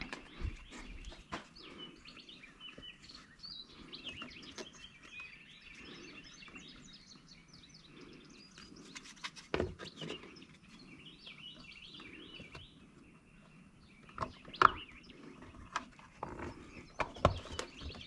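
Birds chirping steadily in the background, with a few sharp clicks and knocks from handling parts, the loudest a little before the end.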